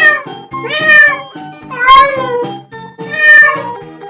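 Domestic cat meowing repeatedly, four meows about a second apart, each rising then falling in pitch. Background music plays underneath.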